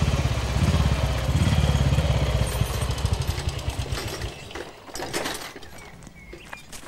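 Motorcycle-and-sidecar engine running with a fast, even pulse as it rides up, then slowing and dying away by about the middle as it pulls up and stops. A few light clicks follow near the end.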